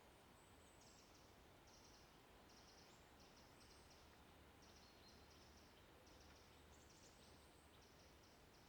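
Quiet woodland ambience: a faint steady hiss with short, high-pitched trilled chirps repeating every second or so.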